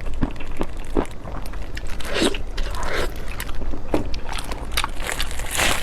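Close-miked eating: crunchy bites and chewing, with many quick sharp clicks and a few longer, louder crunches.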